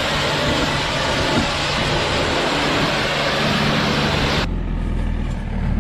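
Tractor engine running with a low hum under a loud, steady rushing noise. About four and a half seconds in, the rushing cuts off abruptly and only the low engine rumble is left.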